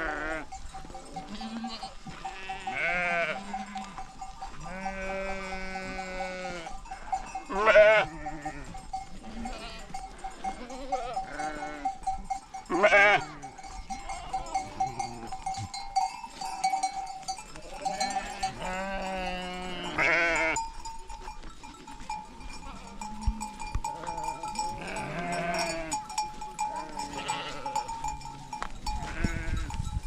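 Flock of sheep bleating: many overlapping wavering calls, the loudest about 8, 13 and 20 seconds in, over a steady ringing tone.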